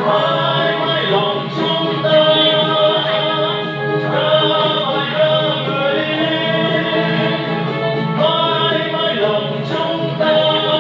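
Music: a Vietnamese song with singing over instrumental backing, playing loudly and continuously.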